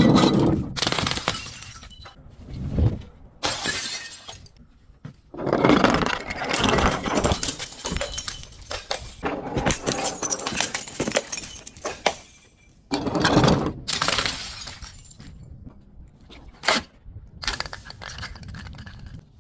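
Glass bottles being crushed, breaking and shattering in a series of crackling, crunching bursts. Some bursts are short and one runs for several seconds, with brief pauses between them.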